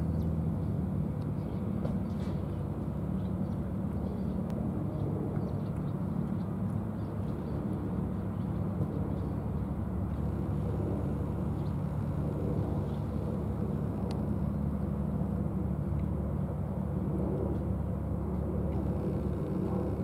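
Steady low rumble of distant road traffic, with a few faint clicks.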